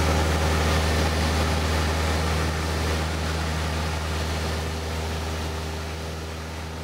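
Cessna 172 floatplane's piston engine and propeller droning steadily as heard inside the cabin in flight, a low hum over rushing air noise, slowly fading out over the last few seconds.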